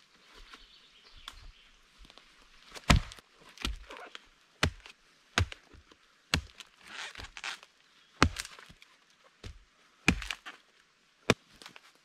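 Axe chopping into a dead log laid across a stump: a run of about nine sharp, dull chops, roughly one a second, starting a few seconds in, with rustling of wood and forest floor in between.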